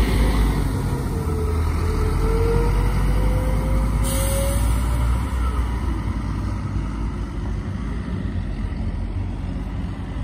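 Scania OmniCity city bus pulling away, its engine running with a whine from the ZF Ecomat automatic gearbox climbing in pitch for the first few seconds, then the sound slowly fading as the bus moves off. A short hiss of air about four seconds in.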